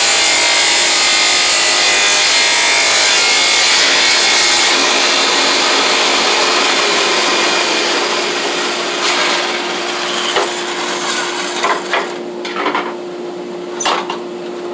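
Shopsmith power saw ripping a thin sliver off the edge of a 2x4; the cutting noise dies away about halfway through, leaving the saw's motor running with a steady hum and a few sharp knocks.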